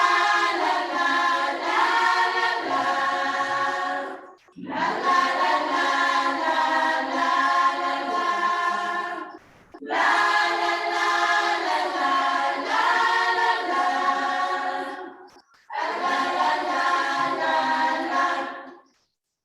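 A choir singing a Christian hymn in harmony, unaccompanied, in four long phrases with a short silent break between each, stopping near the end.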